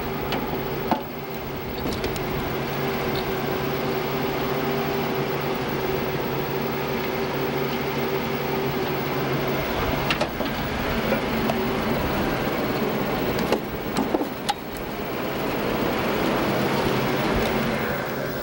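Universal carrier's Ford flathead V8 engine running steadily, with a few short knocks and clicks a little past the middle.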